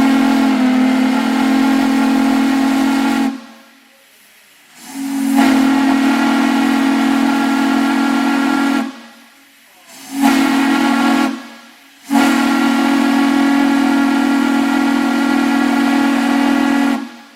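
Chesapeake and Ohio Hudson passenger-locomotive steam whistle blown four times. A long blast is already sounding and stops about three seconds in; it is followed by another long blast, a short one of about a second, and a final long blast of about five seconds. Each is a low-pitched chord of several tones at once that cuts off sharply.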